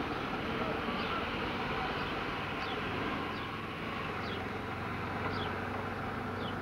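A small car's engine running with a steady low hum under a noisy old recording, while short, high, falling chirps repeat about every half second to second from a few seconds in.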